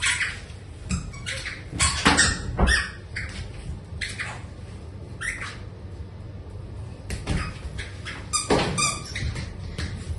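Short duck-like quacks in irregular groups, with a quick run of them near the end.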